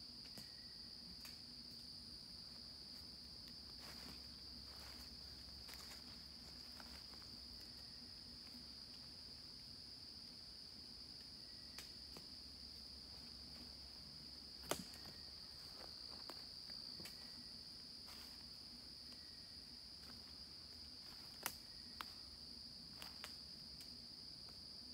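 Faint, steady, high-pitched insect chorus of crickets, broken by a few sharp clicks or snaps, the loudest about 15 seconds in and another about 21 seconds in.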